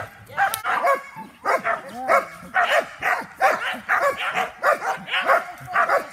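Dog barking excitedly and without a break, about two to three sharp barks a second, mixed with a few higher yips.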